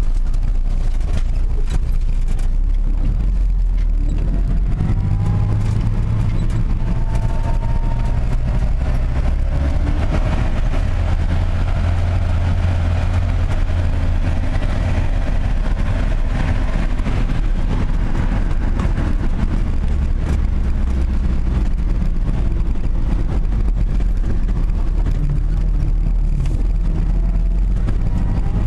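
A motor vehicle driving, with a steady low engine drone and road noise. A faint whine rises in pitch a few times as the engine speed changes.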